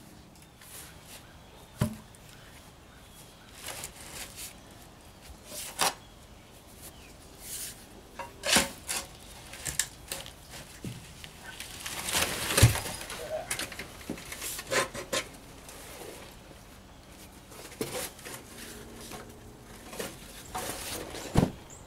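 Irregular knocks, scrapes and rubbing of a large rubber tractor tire being worked off a steel rim that calcium chloride ballast has rusted through. The loudest scraping and knocking comes about halfway through, with a single sharp knock near the start.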